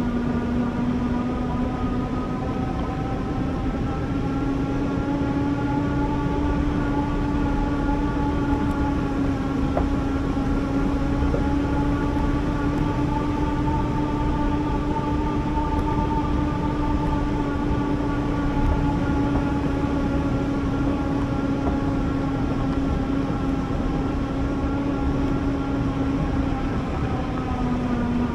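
Electric bike motor whining steadily over a constant rushing noise, its pitch rising slightly about three seconds in and dropping a little near the end as the speed changes.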